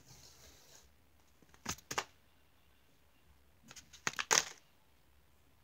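Paper being handled: brief crinkles and rustles of a paper squishy, two close together about two seconds in and a louder cluster about four seconds in.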